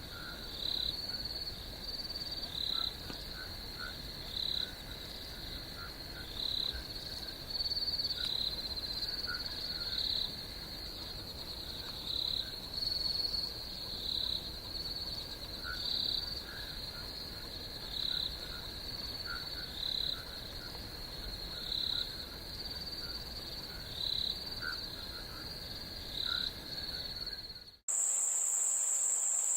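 Night chorus of insects: a steady high trill with louder calls recurring every second or two and faint chirps beneath. Near the end it cuts off abruptly and is replaced by a louder, higher-pitched, steady cricket buzz.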